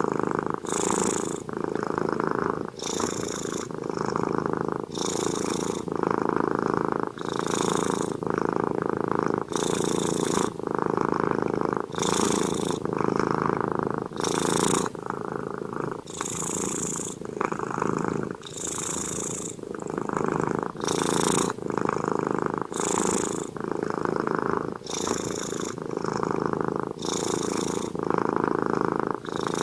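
Domestic cat snoring in its sleep, a steady rhythm of breaths about every two seconds, each with a low rumble and a higher hiss.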